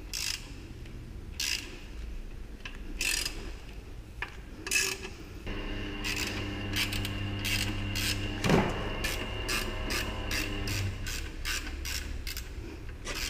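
Ratchet wrench with a 6 mm hex bit clicking as it backs out the clamp bolt on a motorcycle's stock exhaust silencer. First a few separate clicks, then quicker runs of clicks from about five seconds in, over a steady low hum.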